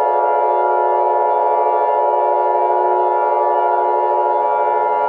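Emergency Alert System attention signal: a steady, unbroken alarm tone over a droning synthesizer music bed, marking the start of an emergency broadcast.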